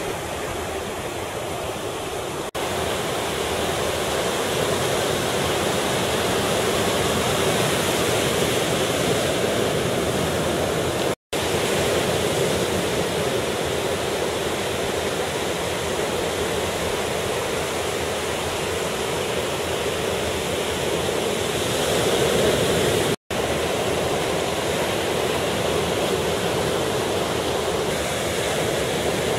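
Ocean surf breaking on a beach, a steady wash of waves. It cuts out for an instant twice.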